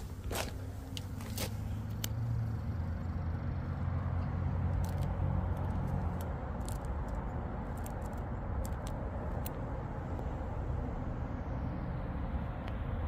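1966 Dodge Charger's rebuilt 440 cubic-inch Mopar big-block V8 idling, a steady low rumble heard from beneath the car along the exhaust pipe. It grows louder for a few seconds about two seconds in, with light ticks over it.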